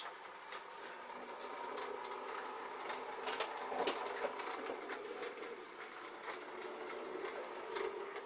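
O gauge model locomotive running along the track, its small electric motor and gears whirring steadily, with a few sharp clicks from the wheels over the track near the middle.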